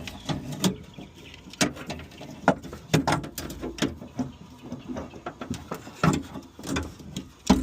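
Irregular clicks, knocks and rattles of a Tahoe's power window regulator and motor assembly being worked loose and pulled out of the door cavity, metal and plastic bumping against the door panel, with a sharper knock near the end.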